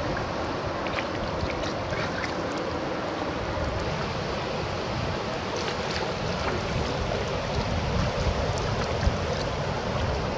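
Steady rush of water at a rocky shoreline, with wind buffeting the microphone and scattered faint clicks. Near the end there are louder low thumps and splashes as a hooked fish is hauled thrashing out of the shallows.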